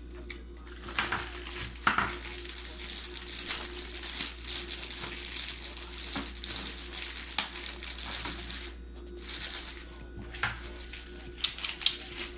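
Product packaging being opened and handled: a steady crackling rustle of plastic and cardboard with scattered sharp clicks, easing off about two thirds of the way in, then a few more clicks near the end.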